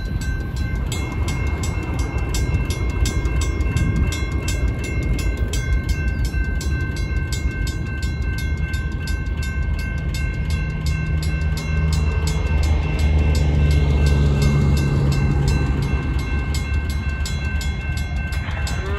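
Railroad crossing bells ringing steadily: a WCH mechanical bell striking about four times a second together with a General Signals electronic bell, over the low rumble of a Union Pacific freight train. A deeper hum swells in the middle.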